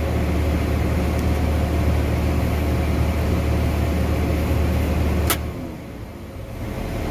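John Deere 8300 tractor's six-cylinder diesel running steadily, heard inside the cab with a deep hum. A little over five seconds in there is a sharp click, the deep hum stops and the cab goes quieter before the drone builds again near the end.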